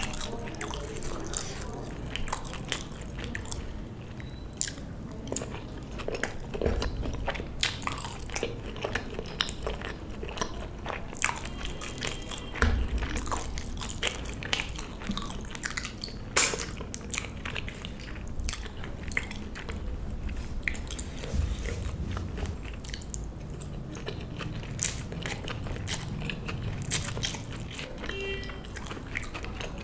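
Close-miked eating: a person biting and chewing food, with crunches and many small crackling clicks throughout.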